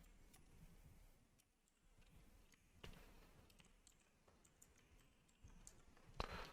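Near silence with a few faint, scattered keystrokes on a computer keyboard, a slightly louder click near the end.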